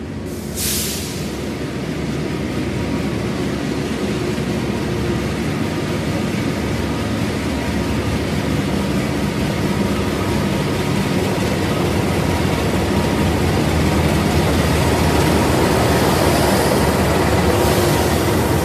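A CC 206 diesel-electric locomotive hauling a passenger train, running with a steady engine drone and wheel rumble that grows louder as it approaches. A brief hiss comes about half a second in and again near the end.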